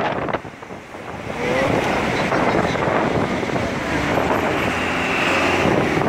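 Wind from a snow blizzard buffeting the microphone over the steady noise of road traffic; the noise drops briefly about half a second in, then picks up again.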